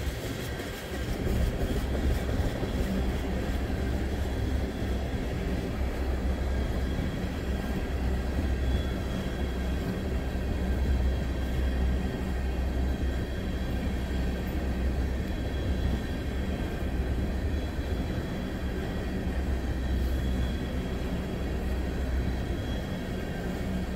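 Freight train of empty ethanol tank cars rolling past: a steady rumble of the steel wheels on the rails.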